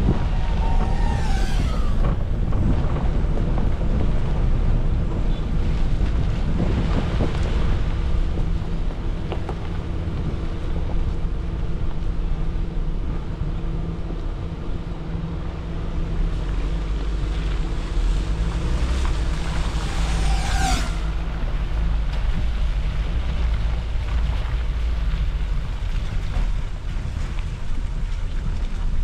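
Suzuki Jimny driving off-road: a steady low engine and drivetrain rumble with wind buffeting the microphone. A short high squeak comes twice, about a second in and again about twenty seconds in.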